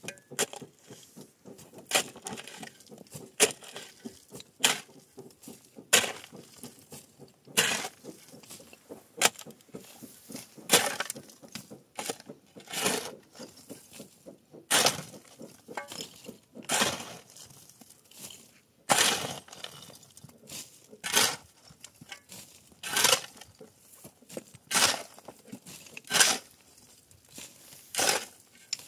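A steel shovel blade scraping and digging into loose stony rubble, a short gritty scrape with clinking stones every second or two.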